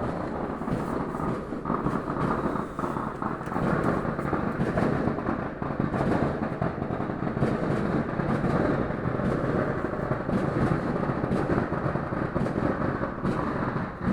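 A dense barrage of fireworks going off together, the many bangs blurring into a steady rumble with scattered faint pops.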